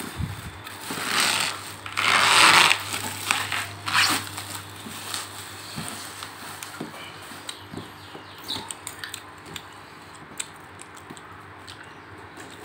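Plastic wrapping rustling and crinkling as hands pull it off a cardboard box. Loudest over the first four seconds, then lighter scattered crinkles and taps.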